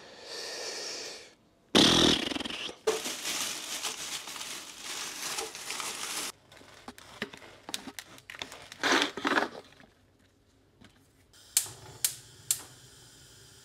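Kitchen food-prep sounds: a plastic bread bag rustling and crinkling, with scattered knocks and clatter. Near the end a low steady hum of a gas hob burner under a pan, broken by three sharp clicks.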